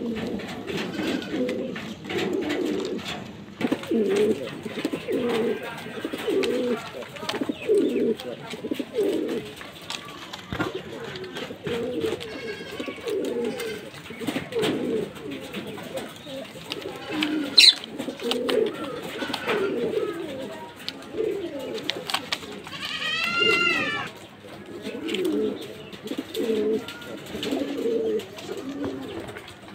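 Fancy pigeons cooing over and over, several birds' low coos overlapping. A short high-pitched call rises and falls about three-quarters of the way through.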